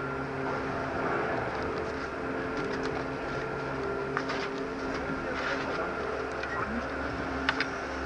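Chairlift machinery running with a steady hum of several constant tones, with a few sharp clicks.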